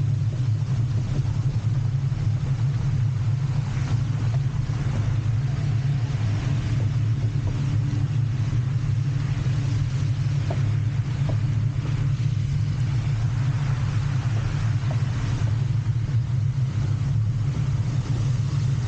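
Steady low rumble of traffic and road noise, with a hiss of wet tyres and rain over it, heard while riding a bike in the rain.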